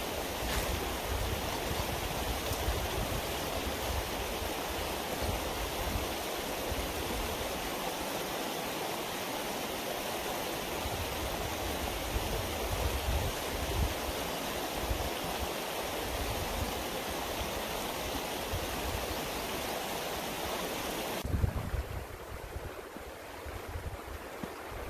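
Small creek flowing, a steady rushing of water with uneven low rumbling beneath it. About 21 seconds in, the sound drops suddenly to a quieter, duller rush.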